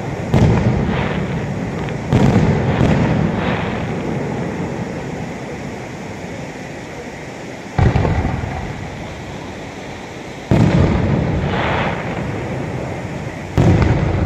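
Aerial firework shells bursting: about half a dozen sharp booms, each trailing off in a long rumble over a couple of seconds, with a longer gap in the middle.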